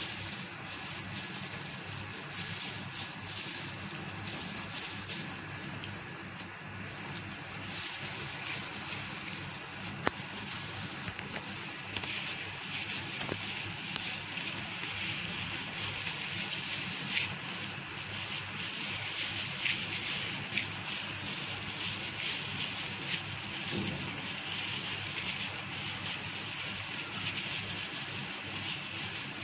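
A plastic glove crinkling and moist mince filling squishing as hands pack it into a slit bitter gourd, very close to the microphone: a steady hiss full of small crackles.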